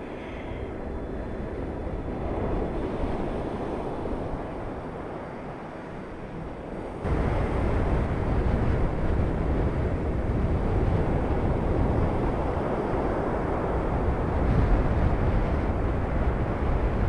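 Storm-force wind rushing over the microphone, a steady roar of noise. About seven seconds in it abruptly gets louder, with heavy low rumbling buffeting.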